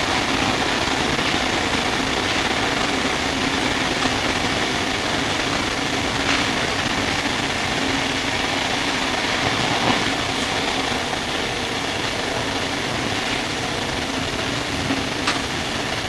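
Steady running noise inside the carriage of a Sydney R set double-deck electric suburban train, with a low steady hum under it and a sharp click near the end.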